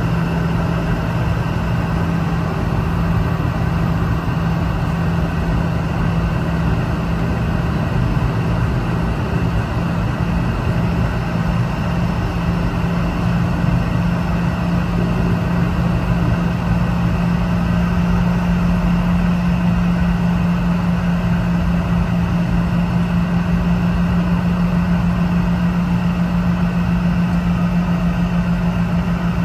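Steady drone inside the cabin of a Boeing 717-200 jet airliner: an even rushing hum with a low steady tone that grows a little stronger about halfway through.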